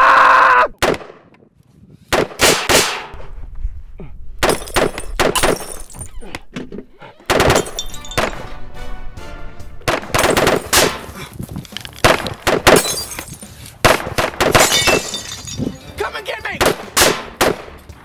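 A man's scream that cuts off within the first second, then gunfire from a pistol: many sharp, irregular shots, some in quick succession, over background music.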